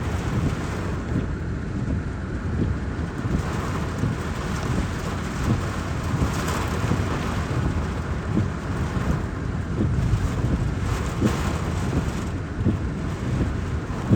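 Heavy rain hitting a truck's windshield and roof, with wind buffeting the cab, heard from inside. A steady rushing with a low rumble that swells louder about six and a half and eleven seconds in.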